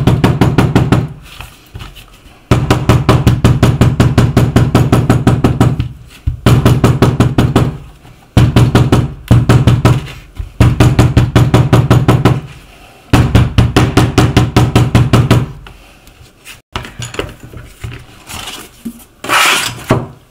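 An abrasive tool is worked rapidly against the leather of a shoe, a fast run of scraping strokes repeated in bouts of a few seconds with short pauses. In the last few seconds the work stops, leaving a few light knocks and handling noises.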